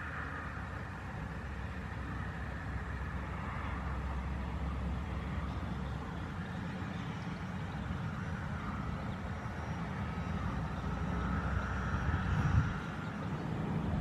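Steady low background rumble with a fainter hiss above it, growing slowly louder, with a brief louder low burst near the end; no bird calls stand out.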